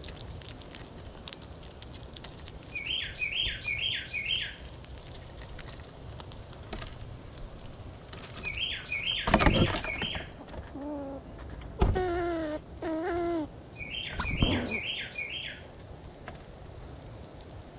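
A songbird sings three times, each song a quick run of four down-slurred whistled notes. Sharp close clicks and cracks come from a gray squirrel husking sunflower seeds beside the camera, loudest about halfway through. Two short, lower calls are heard a little after that.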